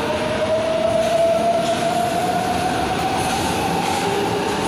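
Metro train of São Paulo's Line 3 fleet G pulling along the platform, its traction motors giving a steadily rising whine as it gathers speed over even wheel and rail noise.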